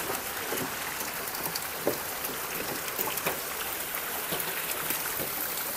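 Trout crowded in a net at the surface of a fish-farm channel, making a steady patter of many small splashes over the hiss of running water.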